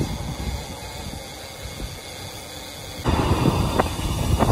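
Wind rumbling on the microphone of a phone carried on a moving bicycle. It turns abruptly louder and rougher about three seconds in, with a few short clicks after that.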